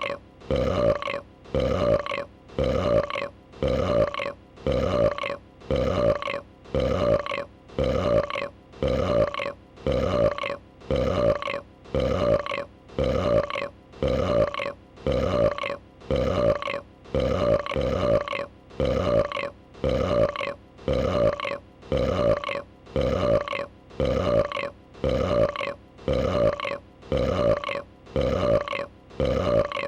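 A female dragon's burp sound effect, one short throaty burp looped over and over, identical each time, about once a second.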